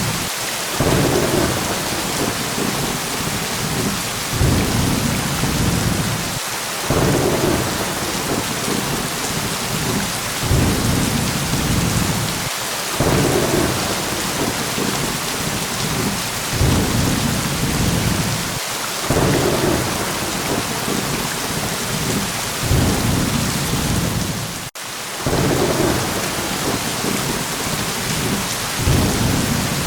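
Steady heavy rain with low thunder rumbles swelling up every few seconds. A momentary drop-out about 25 seconds in.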